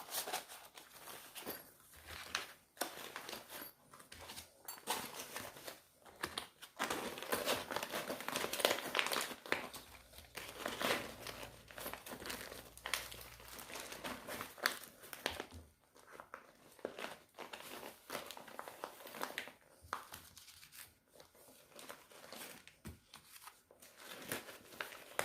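Rustling and crinkling of gear being handled and packed into a backpack, with irregular small clicks and knocks of items being moved around.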